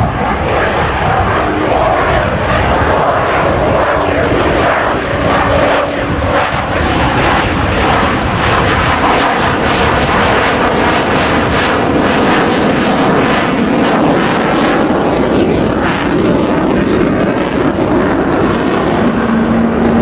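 F-35A Lightning II's single Pratt & Whitney F135 afterburning turbofan running at high power in a display pass: loud, steady jet noise with a ragged crackle through the middle.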